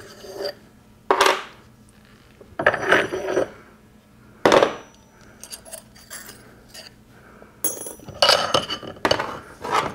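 Heavy steel transmission parts knocking and clinking by hand: a handful of sharp metallic knocks with a short ringing tail, several in quick succession near the end, as the mid plate and gears are worked along a Borg-Warner T10 four-speed mainshaft.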